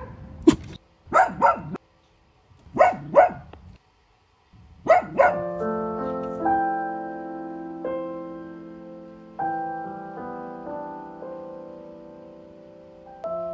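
Longhaired dachshund barking: several sharp barks, some in quick pairs, over the first five seconds. Then piano music takes over.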